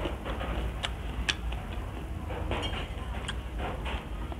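Close-miked eating sounds: chewing and mouth clicks, with fingers pulling apart crispy fried tilapia. Irregular sharp clicks and small crackles over a low hum.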